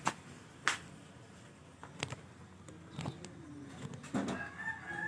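A few sharp clicks and taps of a phone being handled close to its microphone, over faint background sound.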